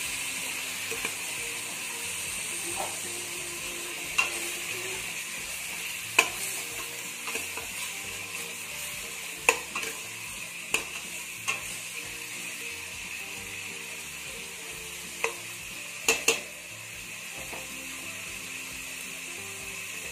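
Chicken pieces sizzling as they sauté in hot oil with garlic and onion, with a spatula stirring and knocking against the pan about eight times, two knocks close together near the end.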